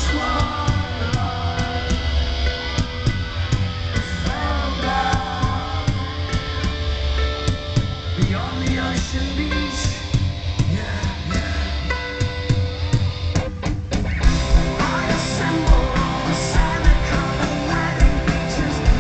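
Loud rock music with singing, electric guitar and drums. It breaks off briefly a little past the middle, then comes back in with heavier drum hits.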